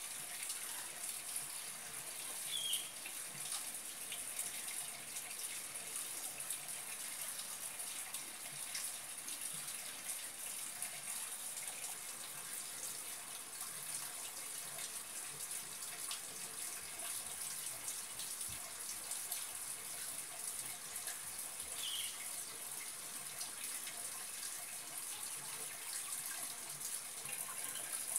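Steady high hiss of background noise, with two brief high chirps, one about three seconds in and one near the end.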